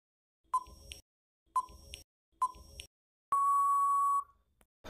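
Quiz countdown-timer sound effect: three short beeps about a second apart, then one long steady beep lasting nearly a second that marks time running out.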